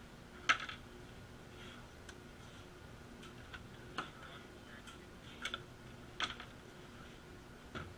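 Scattered clicks and knocks of hands handling electronic music gear (pedals, switches and cables), the sharpest about half a second in and a few more spread through the rest, over a faint steady hum.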